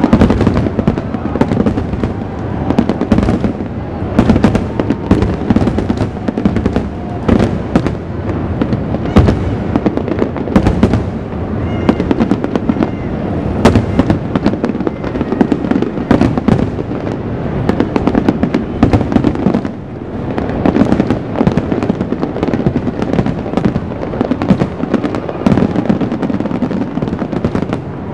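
Fireworks display at full intensity: a dense, continuous barrage of aerial shell bursts, many bangs overlapping one another, with a short dip about twenty seconds in.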